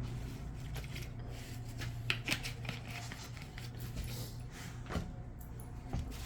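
Faint scrapes and light clicks of a tool working over a phone's frame, cleaning off old adhesive residue, with a low steady hum beneath.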